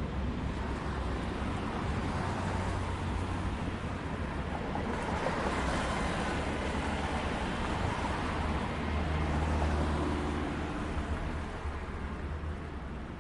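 City street traffic: a steady wash of road noise, with a vehicle passing about five to seven seconds in and a low engine rumble swelling a few seconds later.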